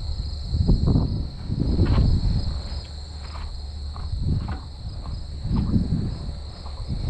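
Insects drone steadily outdoors in a high, even buzz, under several loud low rumbling surges about a second apart.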